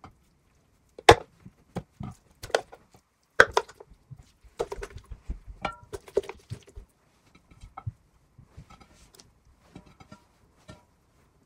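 Knocks and clicks of lamb shanks, garlic cloves and ginger being dropped and pressed into a large metal cooking pot. A few sharp knocks come in the first few seconds, then a run of smaller ones, tailing off to light taps near the end.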